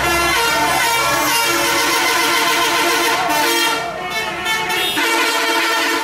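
Intercity bus's multi-tone 'telolet' air horn playing a tune of stepped notes as the bus passes.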